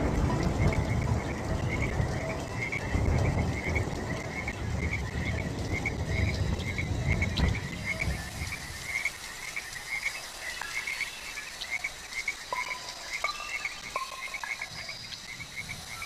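Rainforest ambience: frogs calling in a steady, rapidly pulsing chorus, over a low rush of water that fades away about halfway through. Short, higher chirps come in near the end.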